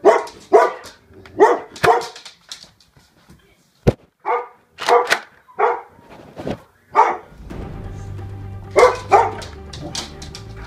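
A dog barking repeatedly, short sharp barks about every half second, with a single sharp click about four seconds in and a steady low hum coming in past the middle.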